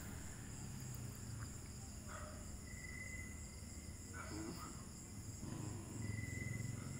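Night insects such as crickets trilling steadily and faintly, a thin high chirp coming and going, with a few faint short sounds about two and four seconds in.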